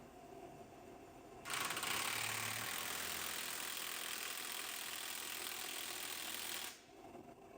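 A power tool running in one long burst of about five seconds: a loud, rattling mechanical whir that starts about a second and a half in and cuts off sharply near the end.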